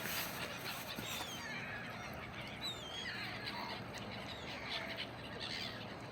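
Birds calling: several short, wavering whistled calls over a steady background hiss.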